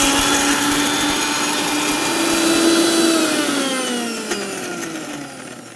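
Prestige electric mixer grinder running at speed, grinding a wet spice paste of ginger, garlic, curry leaves and pepper, a steady motor whine. About three seconds in, its pitch slides down and it fades as the motor winds down.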